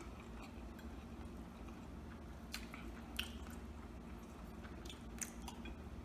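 Faint chewing and the handling of crispy breaded chicken torn apart by hand, with a few short sharp crackles from the coating.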